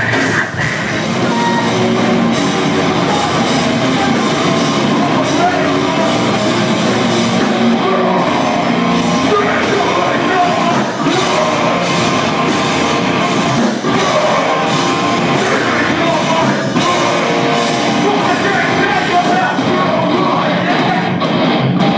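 Live heavy rock band playing loudly through a venue PA, with vocals over distorted guitars and drums.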